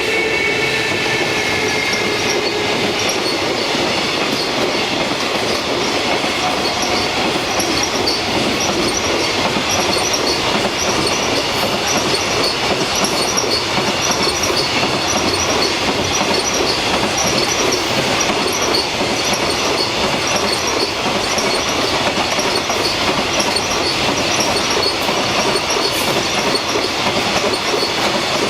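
Container freight train hauled by an EF210 electric locomotive passing close by: a steady rumble of steel wheels on rail, with a regular clatter of wheels over the rail joints and some wheel squeal.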